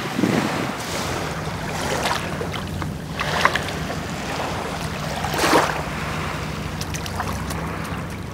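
Small waves washing onto a sandy beach, swelling and fading about three times, with wind on the microphone. A low steady hum runs underneath.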